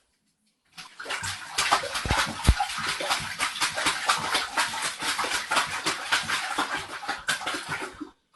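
A dog lapping water rapidly, a fast wet splashing rhythm of several laps a second. Two low thumps sound about two seconds in.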